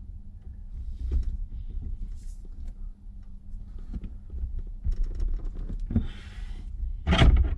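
Handling noise from fitting a steering wheel onto its hub: scattered small clicks and knocks with rustling, and a few louder knocks near the end as the parts are pushed together and bind.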